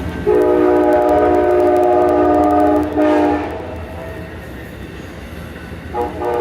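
Amtrak passenger train's locomotive horn: one long chord blast, then a short one, over the low rumble of the passing train. Another brief blast comes near the end.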